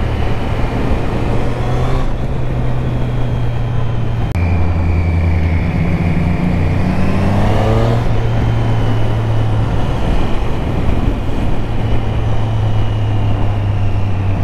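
2024 Triumph Street Triple RS's 765 cc inline-three engine running under way, with wind noise, heard from inside the rider's helmet. The engine note rises for a few seconds as the bike accelerates, then drops at a gear change about eight seconds in and holds steady.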